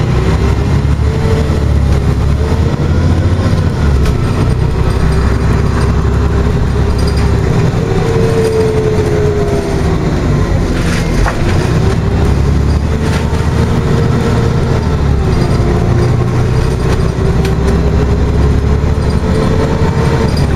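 Scania OmniCity articulated bus heard from inside the passenger cabin while on the move: a steady low engine and road rumble, with a thin whine that slowly rises and falls several times. A couple of brief clicks come near the middle.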